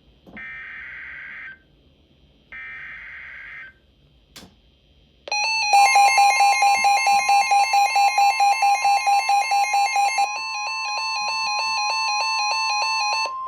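Emergency Alert System weather-radio alert sequence. Two buzzy digital SAME header bursts come about two seconds apart, then a click. About five seconds in, a loud steady alert tone starts, with a second tone pulsing about four times a second beneath it until about ten seconds in. This burst-and-tone sequence marks a new warning being issued.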